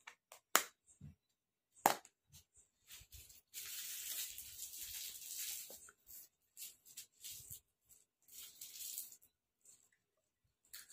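Handling of a plastic compact powder case and puff: two sharp clicks in the first two seconds, then a few seconds of soft rustling and rubbing, with shorter rustles later.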